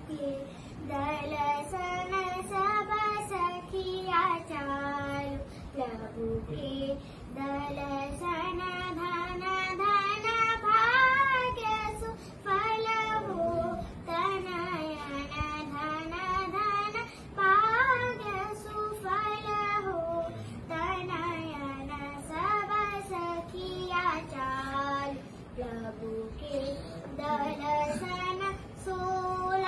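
A five-year-old girl singing a song solo without accompaniment, in phrases of rising and falling notes with short breaths between them.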